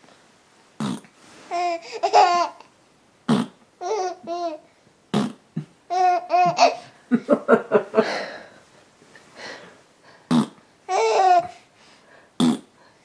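Baby laughing in repeated high-pitched giggling bursts, each set off by a short, sharp noise that comes just before it, about five times.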